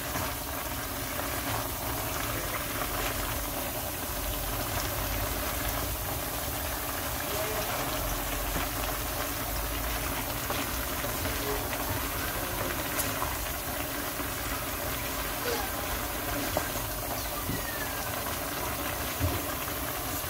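Steady hiss and low rumble of a pot of sliced onions, carrots and sweet peppers cooking on the stove, with a few faint clicks.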